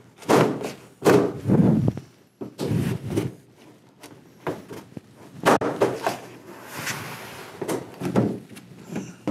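Plastic back cover of an LG 65UN6950ZUA TV being pried and flexed by hand, with a string of sharp snaps and knocks as its edge clips pop loose from the frame.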